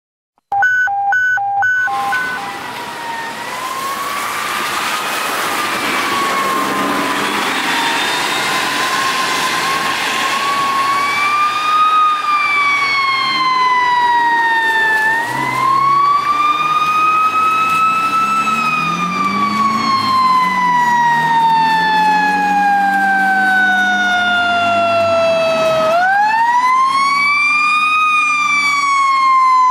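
Federal Q2B mechanical siren on a fire engine, winding up and coasting down: its wail rises, then falls slowly, several times, with a steep climb late on as it is spun up again. Tyre hiss on the wet road and a truck engine sit underneath, and a brief run of short pulsed tones opens the sound.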